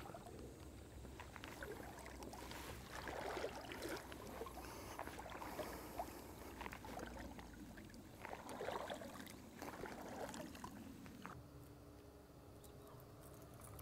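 Water sloshing and swishing around the legs of an angler wading waist-deep through a lake, in uneven surges. About eleven seconds in it gives way to a quieter, steady outdoor background.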